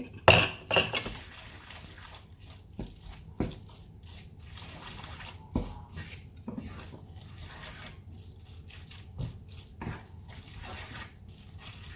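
Spaghetti being stirred and tossed through a wet egg carbonara sauce thinned with pasta water: soft wet slopping with a utensil knocking against the pan now and then, the loudest two knocks within the first second.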